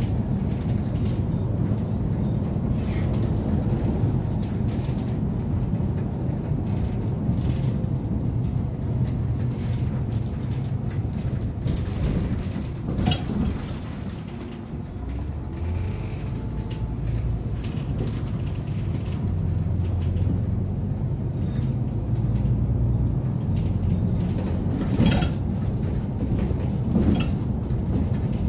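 City bus interior while driving: a steady engine and drivetrain hum, with clicks and rattles from the bus body and fittings. The hum drops briefly around the middle and then builds again.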